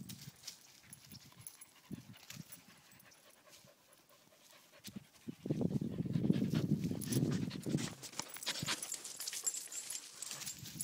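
A dog panting, loudest for a couple of seconds from about halfway in, with scattered small clicks.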